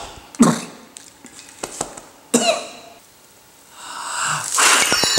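A man coughing a few times in short bursts, then a longer, louder breathy vocal sound from about four seconds in. A bright bell-like ding starts ringing right at the end.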